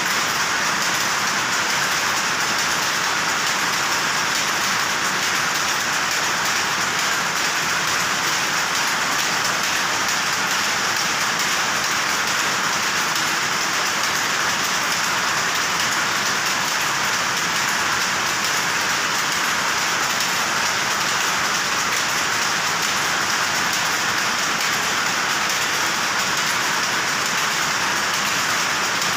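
Powerlooms running: a dense, steady mechanical clatter with no single beat standing out.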